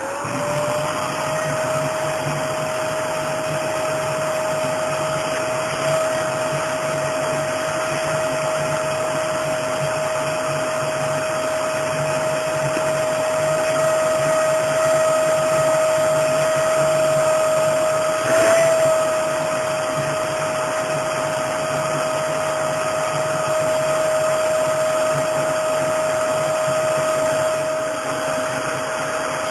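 Vacuum cleaner motor running steadily with a constant whine, spinning up to speed right at the start; a short bump breaks in about two-thirds of the way through.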